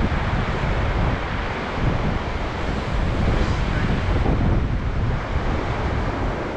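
Wind buffeting the microphone, with waves breaking on the shore behind it; a steady, rough rush with no distinct events.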